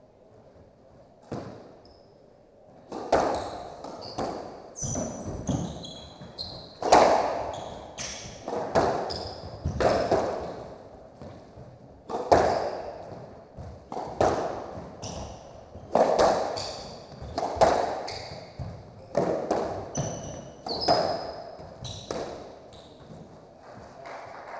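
Squash rally: the ball cracking off rackets and walls, a sharp hit about once a second starting about three seconds in, with shoes squeaking on the hardwood court floor.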